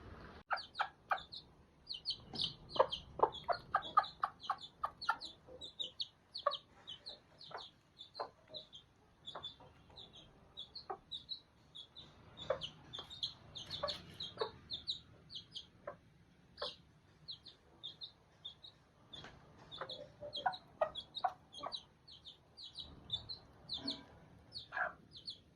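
Chickens clucking, with a near-constant run of short, high chick peeps over scattered lower clucks.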